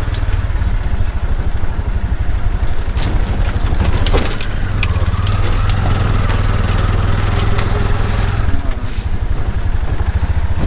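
Tuk-tuk engine running with a steady low drone.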